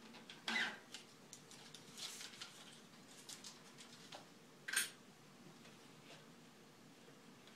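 Quiet handling sounds: light rustles and small clicks as a strip of gasket is worked around the rim of a sheet-metal dust collector housing. Two sharper clicks stand out, one about half a second in and one near five seconds in.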